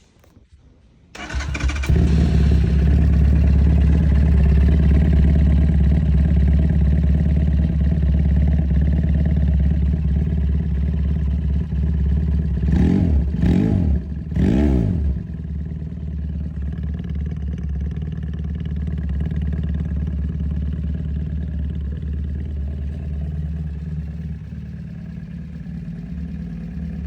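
Motorcycle engine on its original muffler with the dB killers removed, starting about a second in and running loud. Near the middle come three quick throttle blips, and then it settles to a quieter steady idle.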